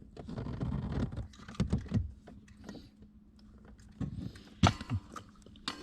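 Irregular clicks, knocks and rattles of hands and tools working on a car's gas pedal assembly under the dash, with two sharper clicks near the end over a faint steady hum.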